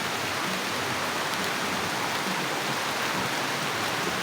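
Steady rain, an even hiss with no single drops standing out.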